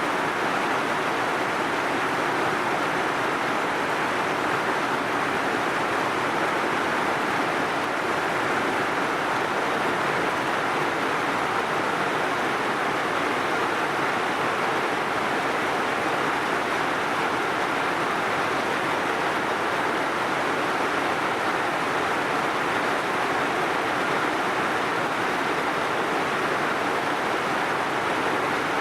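Heavy rain falling steadily, an even hiss with no single drops or thunder standing out.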